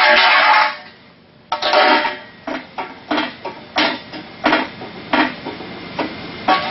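An aluminium boat brace rings after a single hammer blow that dents and bows it, and the ringing fades within the first second. About a second and a half in comes a loud metallic clank, then a string of lighter sharp knocks and clatters about every 0.7 s.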